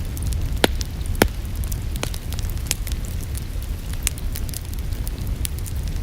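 Fireplace fire crackling, with frequent sharp pops over a steady low rumble; the two loudest pops come about half a second apart in the first second and a half.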